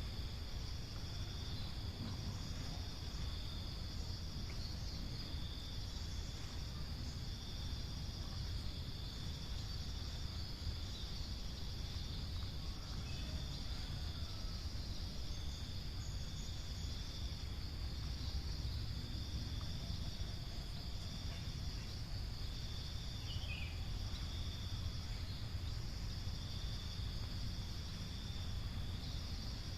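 Insects, crickets or cicadas, keeping up a continuous high-pitched buzzing chorus over a low steady rumble.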